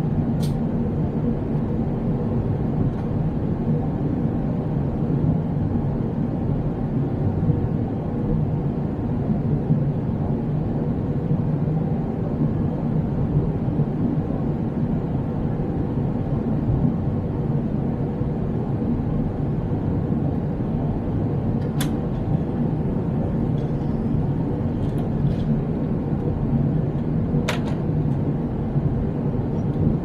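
Airliner cabin noise at cruise beside a wing-mounted turbofan engine: a steady, deep rush of engine and airflow with a faint steady hum. A couple of faint clicks come late on.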